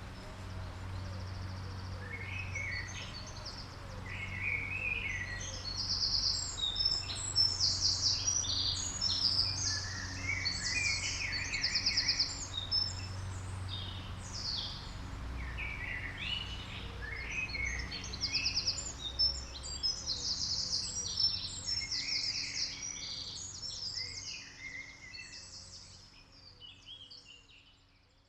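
Several woodland songbirds singing at once, overlapping chirps and fast trills, over a low steady rumble. The whole soundscape fades out over the last few seconds.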